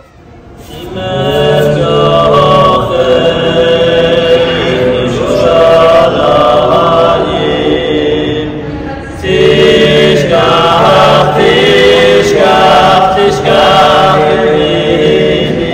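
A small group of men singing together a cappella in harmony, holding long notes. The singing swells in over the first second or so and dips briefly about nine seconds in before rising again.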